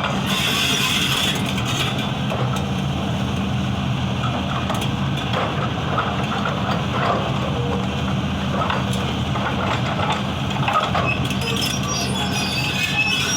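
Heavy excavator's diesel engine running steadily, with irregular crunching and cracking of broken stone over it.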